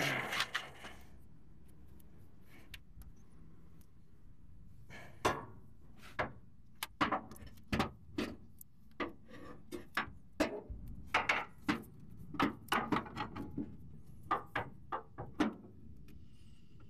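A new Rancho RS5000 shock absorber being worked up into the truck's rear shock mounts: a rustle, then a string of irregular knocks, clicks and rubbing as it bumps against the mounts and suspension.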